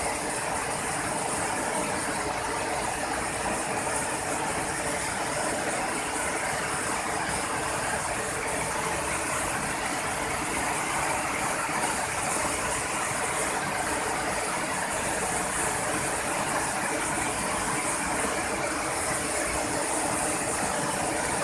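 Steady rush of a shallow river flowing over rocks and small rapids.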